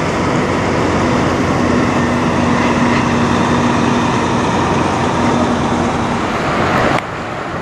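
Diesel semi-truck engine running as the tractor pulls a tanker trailer slowly past, with a steady low drone over road noise; the sound cuts off abruptly near the end.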